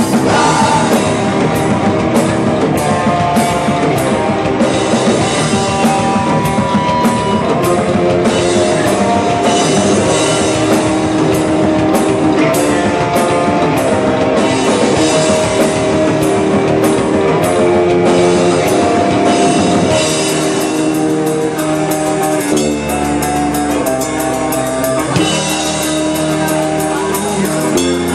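Hardcore band playing live: distorted electric guitars and bass over a drum kit with regular cymbal crashes. About twenty seconds in the song shifts to a sparser, heavier section, and near the end the cymbal hits come faster.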